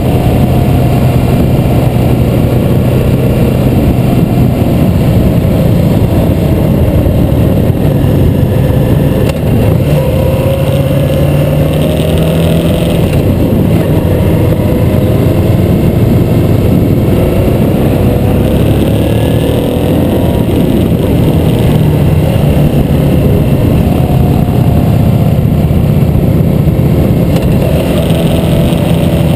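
Harley-Davidson V-twin motorcycle engine running at road speed on a climbing road, its pitch drifting gently up and down with the throttle, over a steady rush of wind.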